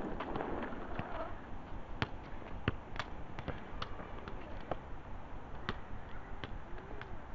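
A football being kicked and bouncing on a tarmac court: a string of short, sharp thuds at irregular spacing, the loudest about two seconds in and again shortly after.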